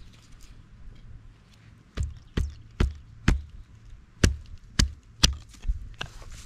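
A fixed-blade knife is knocked down through a small block of wood to split it for kindling. About two seconds in come about seven sharp wooden knocks, roughly two a second, followed by a couple of softer ones.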